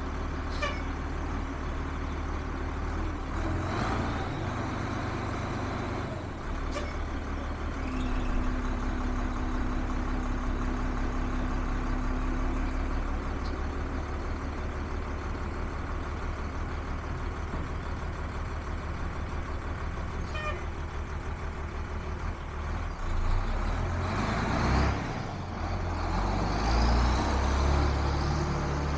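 1997 Ford F800 truck engine idling steadily, punctuated by a few short sharp sounds. Near the end it runs louder as the truck pulls away.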